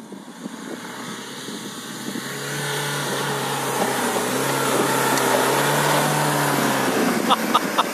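Mahindra XUV500 AWD's four-cylinder diesel revving hard under load on a loose sand climb, with the rush of spinning tyres spraying sand. The engine note builds about two seconds in, holds for several seconds, then drops away near the end, where a few sharp clicks follow.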